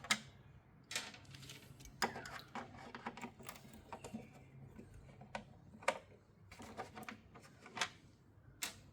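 Irregular sharp clicks and taps of a screwdriver and screws as the screws holding a Land Rover Defender headlight surround are undone, with a faint steady low hum under the first half.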